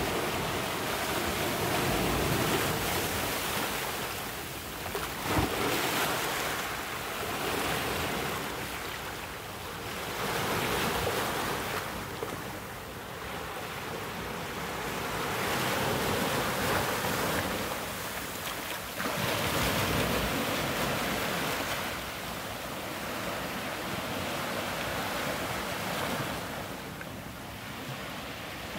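Small ocean waves breaking and washing in over volcanic rocks on the shoreline, the surf swelling and ebbing every few seconds.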